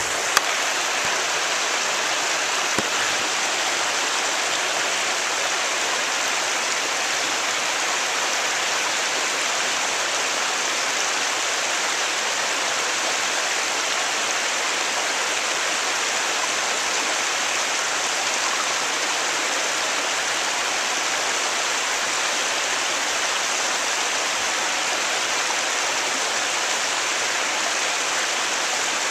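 Creek water pouring over a low rock ledge in a small waterfall: a steady, even rushing splash. A short knock sounds just after the start.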